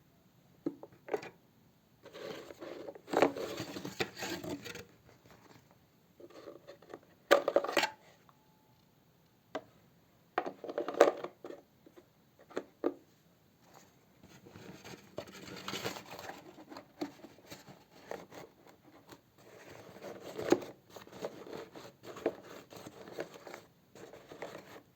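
Irregular scraping, rustling and plastic clicks of hands fitting a dust bag into the dust compartment of a Samsung SC5241 vacuum cleaner, in short bursts with brief pauses between them.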